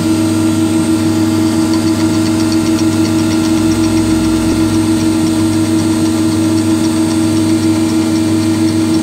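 Cortini L300 milling machine cutting aluminium at high spindle speed with a 10 mm end mill taking a 15 mm deep cut: a loud, steady machining hum and whine that stays even throughout.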